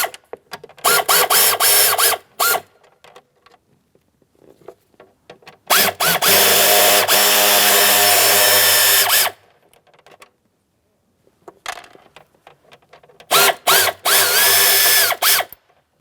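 Power drill-driver backing out small Phillips-head mounting screws: a few short bursts of spinning, then a run of about three and a half seconds, then another burst of about two seconds near the end. Each burst starts with a rising whine as the motor spins up.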